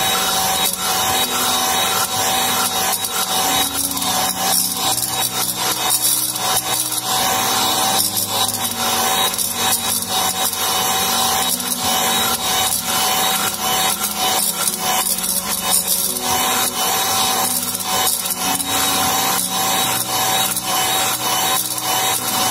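Electric hand mixer running steadily with a constant motor whine, its beaters scraping and rattling through crumbly cooked choux dough in a stainless steel saucepan. The dough is being beaten to cool it down before the eggs go in.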